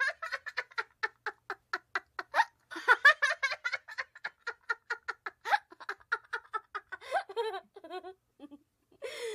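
Laughter: a long, rhythmic run of giggling, about five bursts a second, tapering off near the end.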